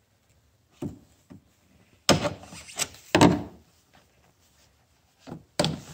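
Several sharp clacks and knocks, with a louder cluster about two to three seconds in and another pair near the end, as toothed metal one-time-use retaining clips are worked off under the hood.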